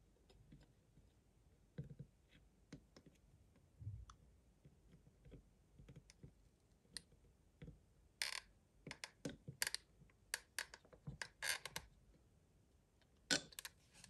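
Faint scattered clicks and knocks from a Parkside hot glue gun being worked over a plastic speaker housing. Near the middle they give way to a denser run of sharp clicks and short scratchy rasps that stops a couple of seconds before the end.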